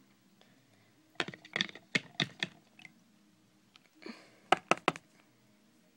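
Handling noise: light clicks and knocks of small objects being moved about close to the microphone, in two short clusters about a second in and about four seconds in.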